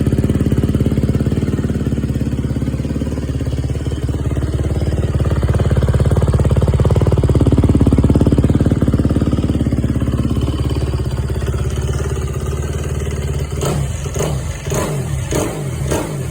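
2022 Kawasaki KX250 single-cylinder four-stroke dirt bike engine running through an FMF 4.1 slip-on muffler, holding steady and then given several quick throttle blips near the end.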